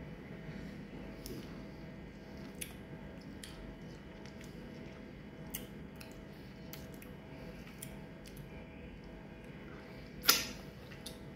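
Quiet wet mouth sounds of someone eating passion fruit pulp: small lip smacks and clicks from sucking the fruit and licking fingers, with one louder, sharp smack or slurp about ten seconds in, over a steady low room hum.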